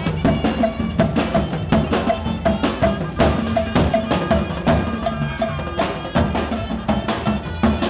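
Parade music with drums and percussion playing a fast, steady beat, a short pitched note repeating over the rhythm.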